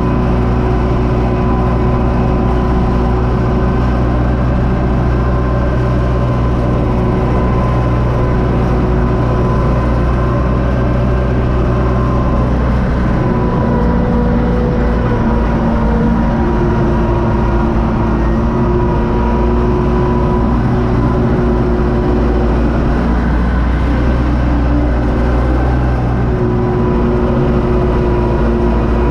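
UTB Universal 650 tractor's four-cylinder diesel engine running steadily under load from inside the cab while pulling a fertilizer spreader across the field. The engine note shifts slightly a little before halfway and again near the end.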